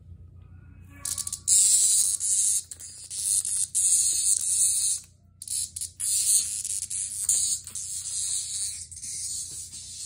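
A cicada giving a loud, harsh, high buzzing distress call as a cat paws at it. The call starts about a second in, breaks off briefly around halfway, then resumes a little softer.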